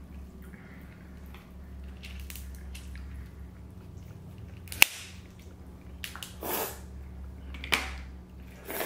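Eating sounds: a crab leg shell cracking once, sharply, just before five seconds in, followed by three short slurps of noodles over the second half.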